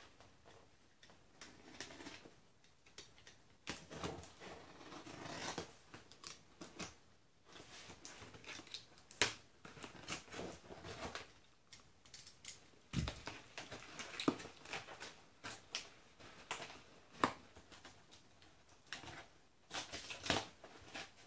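Packing tape on a cardboard box being cut and slit with a small handheld blade: irregular scrapes, clicks and crackles of tape and cardboard, with a dull knock against the box partway through.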